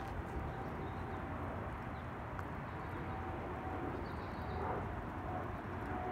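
Steady rain noise with scattered faint ticks of drops.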